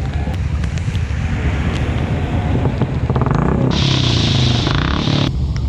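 Motorcycle engine running with a steady low rumble, with road and wind noise on the move. About two-thirds of the way through, a loud hiss rises over it for a second or so and then cuts off suddenly.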